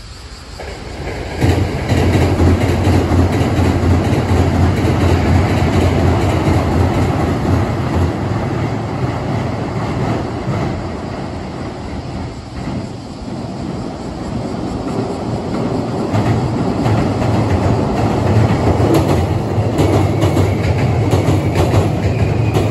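Hankyu electric commuter trains crossing a steel girder railway bridge: a loud rumble with wheel clatter that comes in suddenly about a second and a half in, eases off around the middle, then builds again as a second train, an eight-car Hankyu 8000 series, comes onto the bridge.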